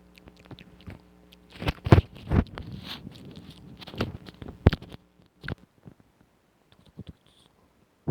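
ASMR mouth sounds close to the microphone: irregular wet clicks and smacks, a cluster of louder ones about two seconds in, then sparser soft clicks.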